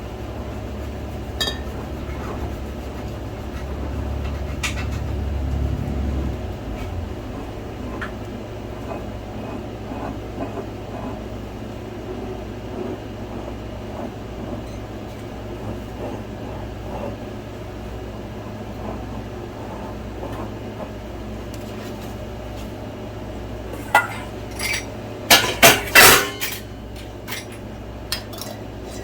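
Kitchen clatter of glass canning jars, metal lids and utensils being handled: scattered light clinks and taps over a steady low hum, with a cluster of loud clanks near the end.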